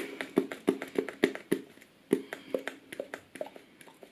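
Plastic pump dispenser on a new bottle of hair-styling jelly clicking as it is worked for the first time: two runs of quick clicks, about four a second, with a short pause between them.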